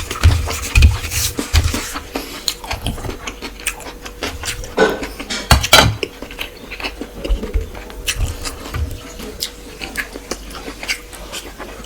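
Close-up eating sounds from someone eating rice and curry: chewing and mouth smacks, with scattered light clicks and clinks from the plate or utensils. A faint steady hum runs underneath.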